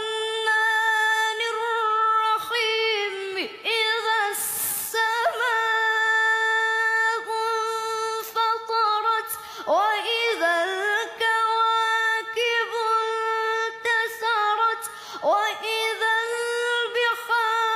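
A boy's high voice chanting Quran recitation in the melodic tajwid style, drawing out long ornamented notes around one steady pitch, with short pauses between phrases.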